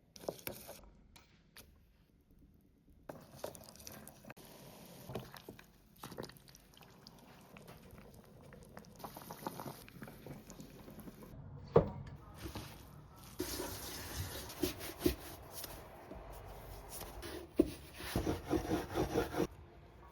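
A run of short kitchen cooking sounds, changing abruptly every few seconds: water and other liquid running, dripping and pouring, with scattered knocks and clatter, busiest and loudest in the last few seconds.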